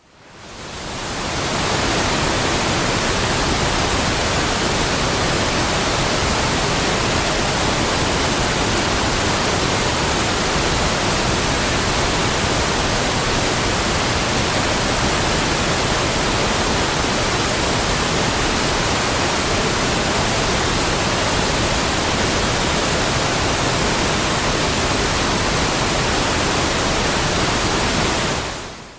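Waterfall sound effect: a steady, dense rush of falling water. It fades in over the first couple of seconds and fades out near the end.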